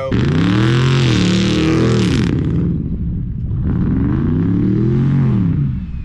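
Dodge Durango R/T's Hemi V8 revving up and back down twice, about two seconds apart. The first rev comes with a loud rushing hiss that cuts off a little over two seconds in.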